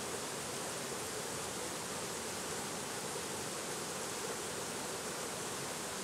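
Middle Prong Little River pouring over a small cascade and rapids: a steady, even rush of whitewater.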